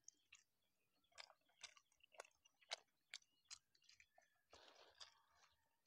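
Close-up chewing of sour fermented beef (ส้มเนื้อ): faint wet mouth smacks, about two or three a second, then a short rougher stretch of chewing noise near the end.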